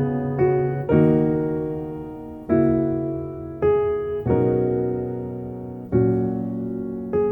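Background music: slow piano chords, struck about once a second or so and each left to fade.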